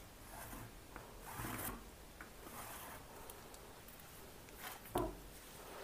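Faint, short scratchy strokes of tailor's chalk being drawn across cotton blouse fabric along a plastic ruler, marking the pattern lines, with a soft knock about five seconds in.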